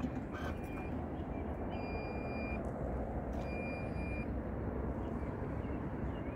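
Porsche Cayenne tailgate opening: a click near the start, then two electronic beeps, each a little under a second, about two and three and a half seconds in, over a steady low background rumble.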